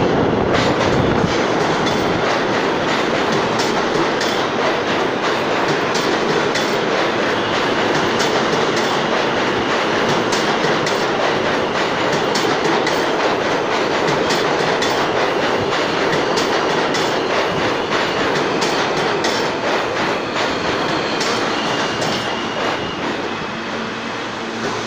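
An R160A subway train running into the station, a loud steady rumble with a rapid clatter of wheels over the rails, easing slowly as the train brakes toward a stop near the end.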